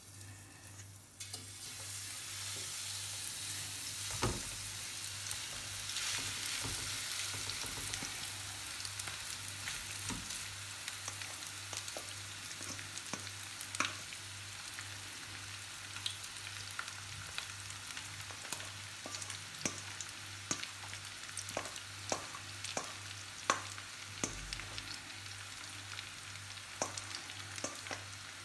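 Shredded cabbage and carrot sizzling in hot oil in a non-stick frying pan, the hiss starting about a second and a half in as the vegetables are tipped in, with scattered pops and crackles throughout.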